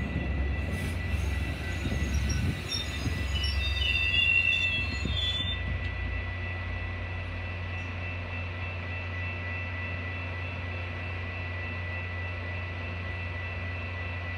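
Metra commuter train's bilevel coaches rolling slowly past and braking to a halt, with wheel and brake squeal around four to five seconds in. The rumble drops off about five and a half seconds in, leaving the standing train's steady hum.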